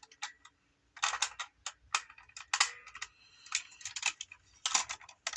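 Plastic clicking and clattering of a Gokai Cellular toy morpher being handled, irregular clicks coming in quick clusters.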